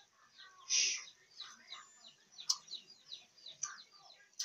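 Small birds chirping again and again in the background, many short falling chirps. About a second in there is a louder, short slurp as hot soup is sipped from a ladle.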